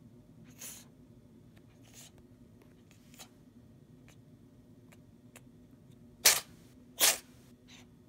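Cat sneezing twice in quick succession near the end, two sharp bursts under a second apart, with a few faint sniffs before; the cat has a cold.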